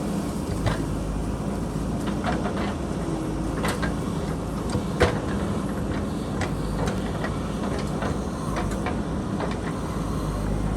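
JCB backhoe loader's diesel engine running steadily, with scattered sharp knocks and clanks over it. The loudest knock comes about five seconds in.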